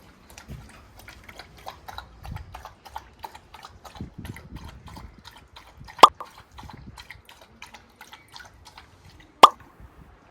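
Doberman puppy giving two sudden, sharp, loud hiccup- or retch-like yelps, about six and nine seconds in, among quick small clicking mouth noises. The owner fears it comes from something odd the dog ate.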